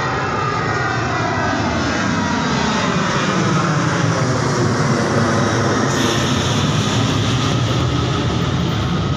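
Jet airliner's engines at takeoff power, a loud steady roar. Its whining tones fall slowly in pitch as the aircraft goes by.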